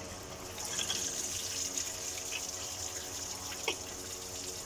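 Engine coolant running steadily out of the disconnected thermostat hose, a hiss of running liquid with a few small clicks. This is the cooling system draining during a thermostat change.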